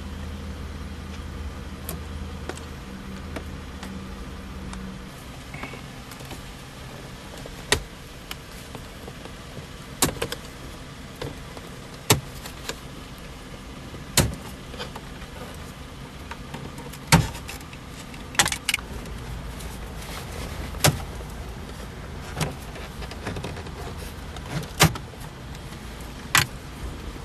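Sharp clicks and knocks from hand work on a car's plastic dashboard trim, coming about once every two seconds. A low hum fades out about five seconds in.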